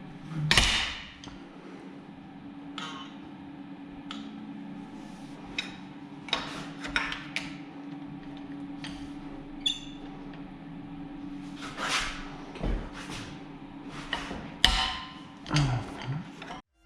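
Irregular metallic knocks and clinks of hand tools and parts being handled on a VR6 engine while the timing chain gear is taken off, over a steady low hum. The loudest knocks come about half a second in and again near the end.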